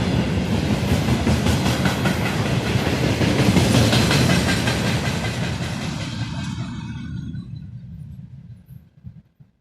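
Wagons of a train hauled by a VL10 electric locomotive rolling past with clattering wheels on the rail joints. The sound fades away over the last few seconds as the train recedes, dying out just before the end.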